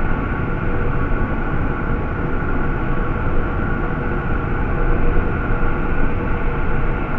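Sci-fi alien drone sound effect: a steady, dense low rumble with faint sustained tones running through it, unchanging and without breaks.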